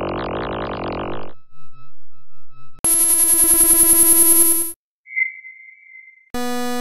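A string of synthesized sci-fi sound effects. A warbling electronic noise stops about a second in, then a loud, rapidly pulsing buzz sounds from about three seconds to almost five. A short high beep follows, and a steady low buzzing tone starts near the end.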